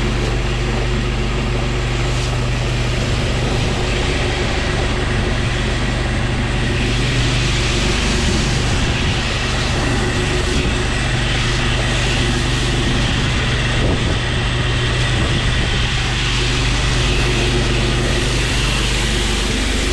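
Pressure-washer engine running at a steady drone while the wand sprays SH (sodium hypochlorite) cleaning solution, its hiss swelling about a third of the way in.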